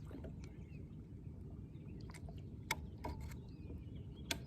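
Quiet outdoor ambience on open water: a low steady rumble with faint distant bird calls, and two short sharp clicks, one after a little over two and a half seconds and one near the end.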